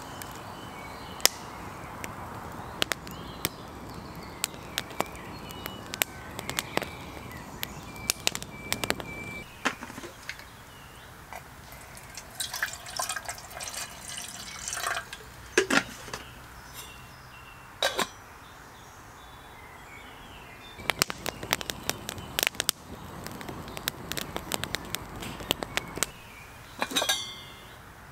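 A wood campfire crackling with sharp pops for about the first ten seconds. Then water is poured into a small metal camping kettle, followed by clinks and taps of metal as the kettle and its lid are handled.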